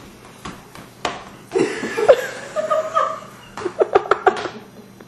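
A person laughing in several bursts, ending in a quick run of short 'ha' pulses a bit before the end.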